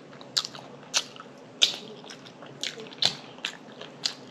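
Close-up mouth sounds of someone chewing breakfast food: wet smacks and clicks about every half second.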